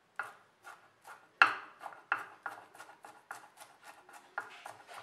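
Knife chopping curry leaves and coriander on a wooden chopping board, its blade knocking the board in a quick, steady run of about three strokes a second. One stroke, about a second and a half in, is louder than the rest.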